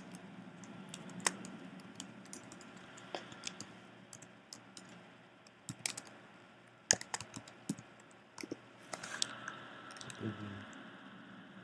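Typing on a computer keyboard: scattered, irregular key clicks, faint, with a few sharper clicks among them.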